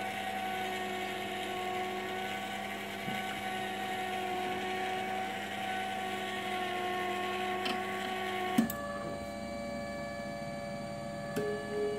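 Motorised conveyor belt running with a steady mechanical hum and whine while carrying a workpiece. It stops with a sharp click about two-thirds of the way through. Near the end a pulsing tone starts, repeating about twice a second.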